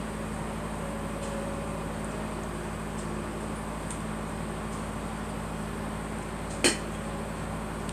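Steady background hum and hiss, with a single sharp click about two-thirds of the way through.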